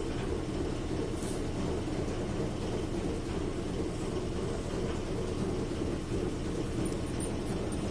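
A steady low hum with an even hiss over it, with no change in level, and a few faint light ticks about a second in and near the end.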